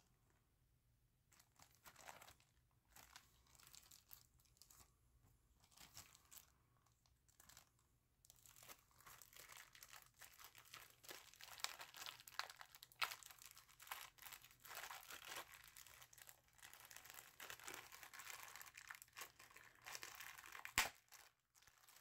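Faint crinkling and rustling of plastic packaging being handled, sparse at first and busier from about a third of the way in, with a sharp click near the end.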